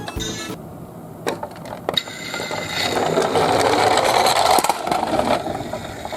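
Toy garbage-truck minicar rolling down a slope, its small wheels rattling and clicking. The rolling noise swells about two seconds in and falls away shortly before the end.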